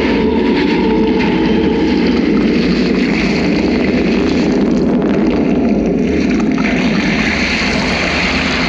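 Loud, steady rumbling din from a fireworks display's finale, with no single bang standing out.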